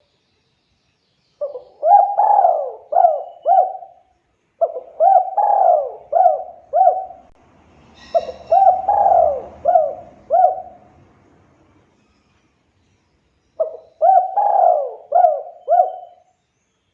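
Spotted dove (tekukur/derkuku) cooing: four phrases of about five quick, husky, pitch-hooked coos each. The phrases begin about a second and a half in, at about four and a half seconds, at about eight seconds and near the end, with pauses between.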